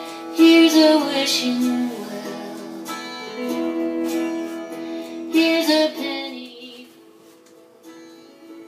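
A song with guitar and a singing voice holding long notes, loudest about half a second and again five and a half seconds in, growing quieter near the end.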